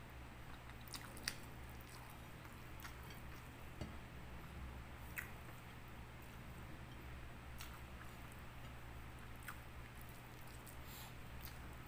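Faint chewing and mouth sounds of a person eating rice and fish by hand, with scattered soft clicks over a steady low hum.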